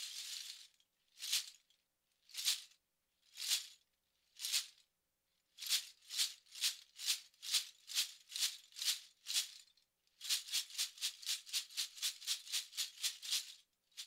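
Large hand rattle of six dozen lightweight aluminium bottle caps, shaken in separate strokes of bright metallic clatter. It starts with four single shakes about a second apart, then about two shakes a second, then a fast shake of about six a second that stops suddenly near the end.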